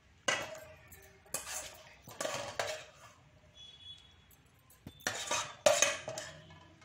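Steel spoon scraping and clinking against a cooking pan and a serving dish as thick tomato curry is spooned out, in several separate strokes with the loudest clatter near the end.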